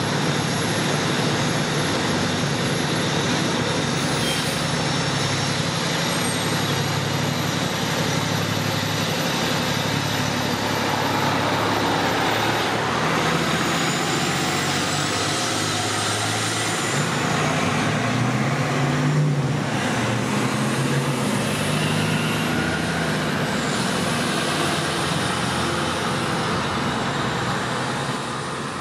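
2007 Pierce Quantum fire engine's diesel engine running steadily as the pumper pulls out and drives off, with street traffic noise around it; the sound eases off a little near the end as it moves away.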